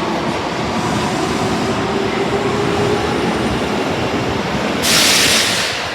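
Osaka Metro Tanimachi Line 22 series subway train noise, steady, with a faint held whining tone. About five seconds in comes a loud, sharp burst of hiss lasting under a second.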